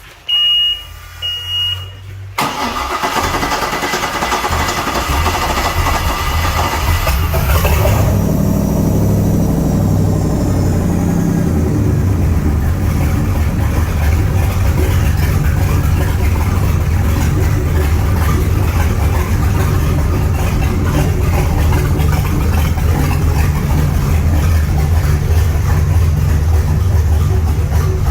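Volvo Penta 5.7 GSi marine V8 being started hard: two short beeps, then the starter cranks it for about five seconds before it catches at about eight seconds in. The engine then settles into a steady idle.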